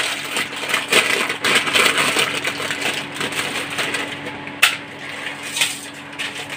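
Plastic instant-noodle wrappers crinkling and rustling as they are torn open and squeezed, with dry noodles tipped and broken into a steel bowl of uncooked macaroni. A sharp click about four and a half seconds in.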